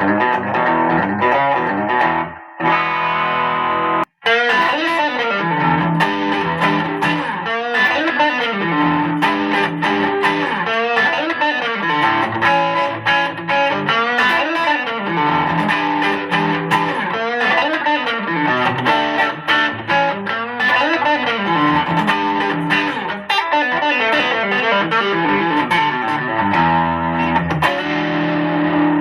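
Electric guitar played through an amplifier with distortion, in fast runs of notes that climb and fall again and again. The playing breaks off briefly twice in the first few seconds.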